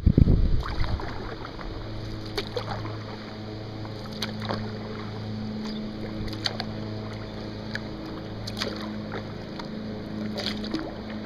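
Kayak paddle strokes on lake water: short splashes and drips every second or so, over a steady low motor hum. A loud rumbling bump comes at the very start.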